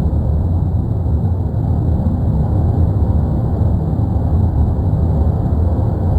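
Steady, deep rumble of the La Palma volcano erupting, a continuous low noise without breaks or distinct blasts.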